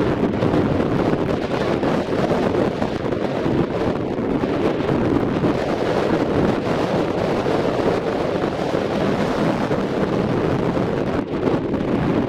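Wind buffeting the camera's microphone: a steady, low rushing noise.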